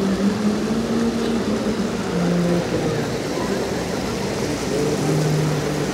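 Shallow stream water rushing and churning over stones, a steady rush, with people's voices talking over it.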